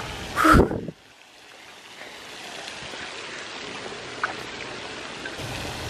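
Steady splashing hiss of a pond's aerating fountain spray, after a brief loud burst about half a second in.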